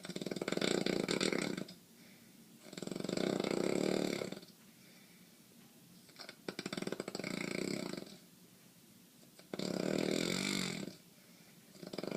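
A man snoring, one rattly snore about every three seconds, each lasting around a second and a half, with quiet breathing gaps between. The snoring is put down to nightly sinus congestion that obstructs his breathing.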